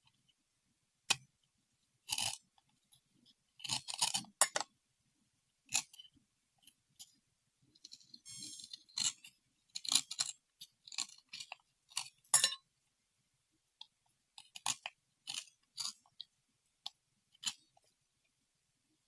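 Irregular short crisp clicks, taps and crunchy scrapes from small objects being handled and cleaned, with silence between them and a brief crackly rustle about halfway through.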